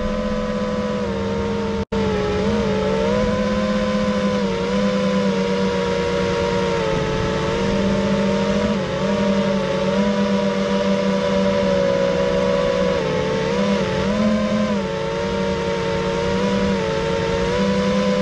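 FPV quadcopter's brushless motors and propellers whining, the pitch rising and falling together as the throttle changes. The sound cuts out for an instant about two seconds in.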